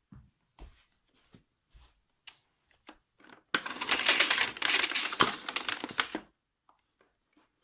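Plastic parts of a cylinder vacuum cleaner being handled with the motor off: scattered clicks and knocks, then about three seconds of dense, rattling clatter.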